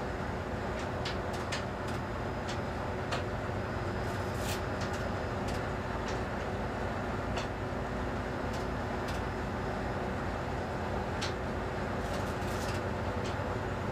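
Tugboat's diesel engine running steadily, heard from inside the wheelhouse, with light clicks now and then.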